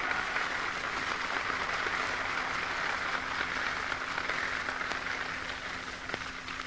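A large crowd applauding in a sustained wash that slowly dies down toward the end, heard on a 1942 recording with a steady low hum under it.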